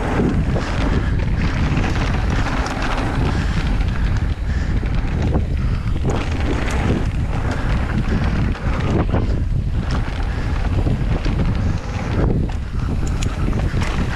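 Wind buffeting an action camera's microphone during a mountain-bike descent on a dry dirt trail, over the steady rumble of tyres rolling on dirt and loose gravel, with small clicks and rattles from the bike.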